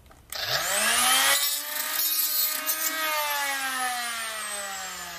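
Harbor Freight 3-inch air cut-off tool, converted with a drill chuck, spinning up and grinding through a metal rod with its cut-off wheel for about a second, finishing the cut. Then its whine falls steadily in pitch as the wheel winds down.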